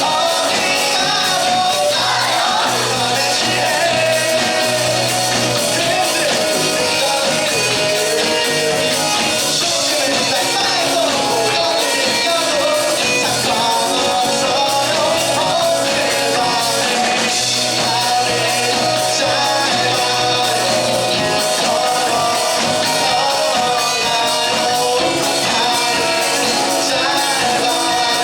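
Live rock band playing a song with a lead singer.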